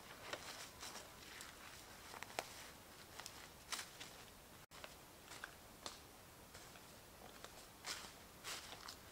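Footsteps crunching and rustling through dry leaf litter and twigs, in short irregular crackles.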